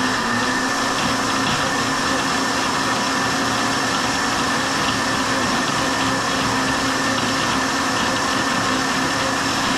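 Countertop blender running steadily at one speed, mixing cake batter made from a boxed cake mix.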